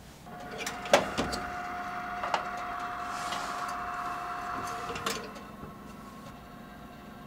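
Countertop oven being loaded: a few sharp clicks and knocks as the door opens and a silicone mold is set on the wire rack, then a clunk as the door shuts about five seconds in. The hot oven's running hum is louder while the door stands open and quieter once it is closed.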